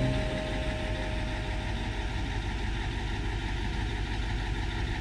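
An engine running steadily at idle, a continuous mechanical drone.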